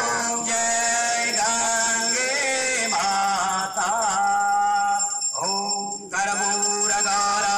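Devotional aarti hymn sung over a steady drone, with bells ringing constantly; the singing pauses briefly about five seconds in.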